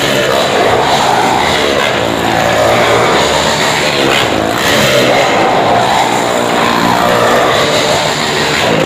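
Motorcycle engine running hard as the bike laps the vertical wooden wall of the drum, its pitch and loudness swelling and easing every couple of seconds as it circles past.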